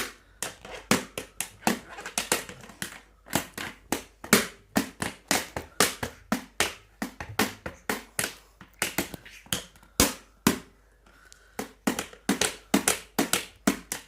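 A small drum beaten in a quick, uneven run of strikes, about three a second, the musaharati's wake-up drumming for the Ramadan pre-dawn meal, with a brief pause about ten and a half seconds in.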